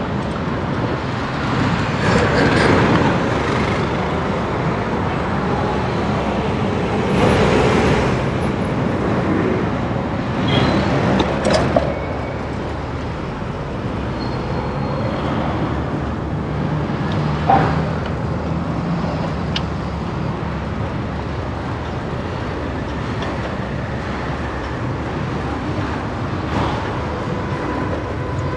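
City street traffic: a steady rumble of road noise with several vehicles passing by, and a brief sharp knock about two-thirds of the way through.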